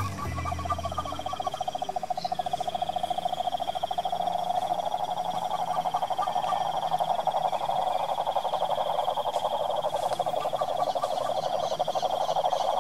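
Toad, given as the cane toad (Rhinella marina), calling with a long, rapid, low trill that runs on without a break. It is the advertisement call of a male at a breeding pond. A steady high-pitched buzz sounds behind it.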